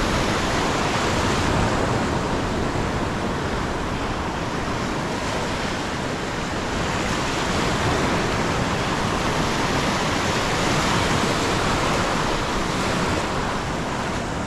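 Ocean surf breaking and washing up a shallow sandy beach: a steady rushing wash that swells and eases gently every few seconds.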